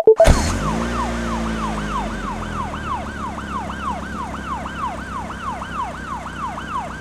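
Police car siren sound effect: a wailing tone that sweeps down again and again, about three times a second, over a steady low engine rumble.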